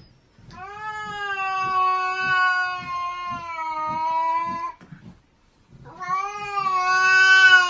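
Cat yowling: two long, drawn-out, steady yowls, the second starting about six seconds in, with faint regular low thuds underneath.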